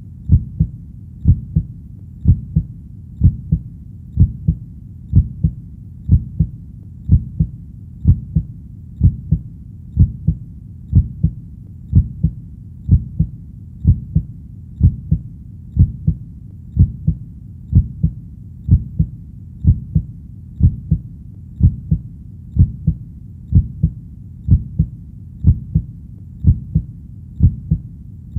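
Heartbeat with a steady lub-dub of paired low thumps, about one beat a second. It runs over a constant low rumble.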